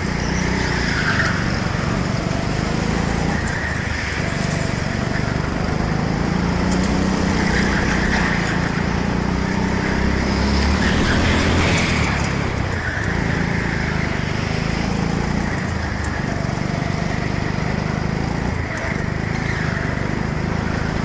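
Go-kart engine running hard on the track, heard from onboard the kart, its pitch rising and easing off every few seconds through the corners, with other karts' engines close by.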